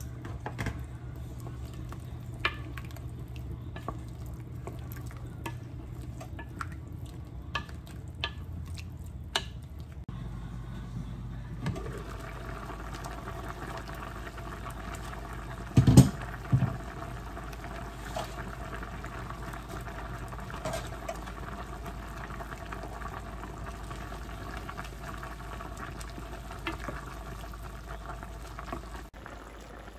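A pot of curry simmering on the stove, a steady bubbling hiss, with scattered small pops and clicks in the first third. About halfway through comes a single loud knock, the loudest sound.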